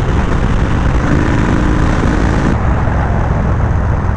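Yamaha Road Star Warrior 1700's V-twin, fitted with a Speedstar aftermarket exhaust, running steadily at cruising speed, mixed with wind rushing over the helmet microphone. About two and a half seconds in, the high hiss drops off a little.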